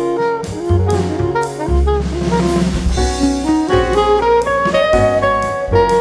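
Instrumental background music in a jazz style: a melody moving in steps over a bass line and a steady drum beat, with a cymbal swell about halfway through.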